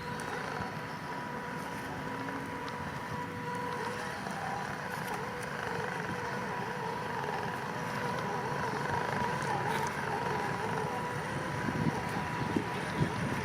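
Electric RC off-road crawler running, a steady motor and gear whine over continuous rumble, with a few sharp knocks near the end.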